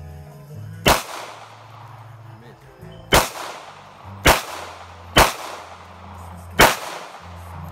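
Five handgun shots, each a sharp crack with a short echo tail. They are unevenly spaced: one about a second in, then four more between about three and six and a half seconds.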